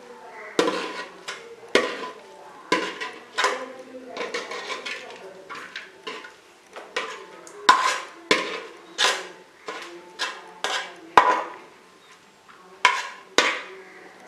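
Metal spoon scraping and clinking against metal cooking pots as minced chicken keema is scooped and stirred, in irregular strokes about one every half second to a second, some ringing briefly.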